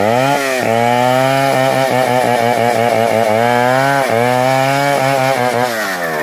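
Two-stroke chainsaw making a felling cut into the base of a standing jati belanda (Dutch teak) trunk at high revs, its engine pitch sagging and recovering again and again as the chain bites into the wood. Near the end the engine drops off toward idle.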